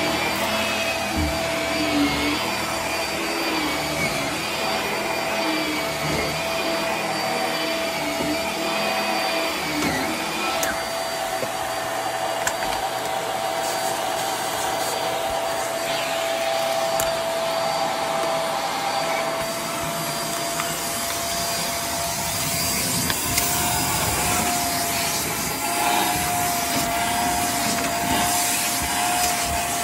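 Hart vacuum cleaner running continuously as it cleans carpet, a steady motor whine over rushing air. In the latter part the air rush turns hissier while the extension wand sucks along the baseboard.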